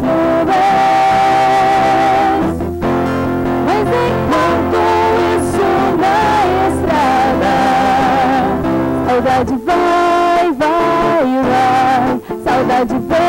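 A woman singing a slow song with acoustic guitar accompaniment, the guitar strummed with a pick. The sung phrases hold long notes with vibrato, breaking briefly between lines.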